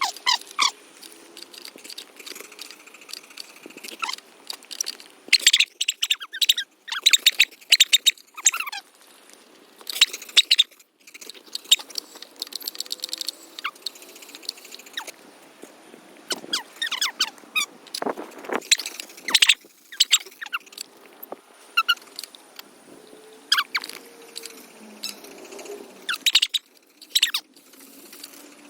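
Many short, high squeaks and chirps in irregular clusters, some gliding up and down in pitch.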